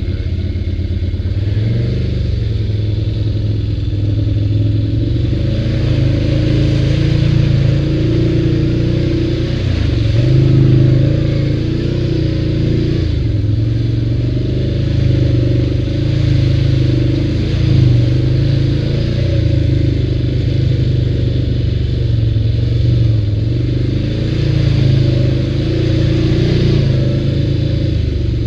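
ATV engine running under load while riding, its pitch rising and falling with the throttle, with stretches of rushing noise and some clatter over the rough trail.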